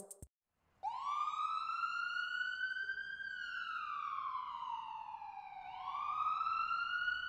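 A siren wailing: one clear tone that starts about a second in, climbs, slowly falls, then climbs again.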